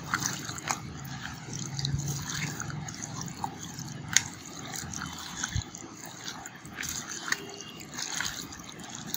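Hand kneading raw mutton pieces in a wet yogurt-and-spice marinade in a plastic bowl: irregular squelches and small wet clicks.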